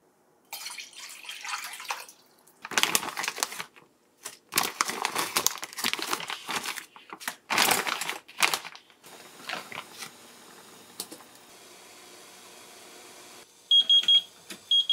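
Plastic food packaging crinkling and rustling in irregular bursts as fish cakes are unwrapped and handled, then a faint steady hiss. Near the end comes a quick series of short high beeps from an induction cooktop's touch controls as the heat is set.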